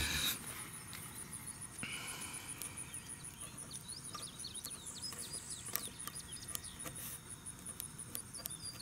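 Birds chirping in short calls, over a steady, fast-pulsing high-pitched insect trill, with a few faint clicks.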